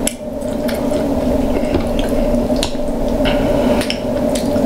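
Close-miked eating of seafood: wet chewing, lip smacking and squelching, with scattered short, sharp clicks, over a steady low hum.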